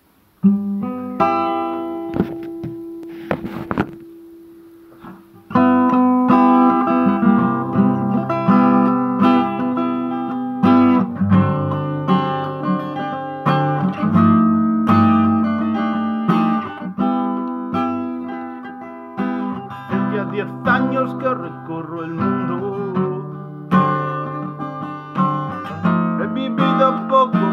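Acoustic guitar playing a song's introduction: a few notes ring out first, then from about five seconds in the guitar settles into steady strummed chords.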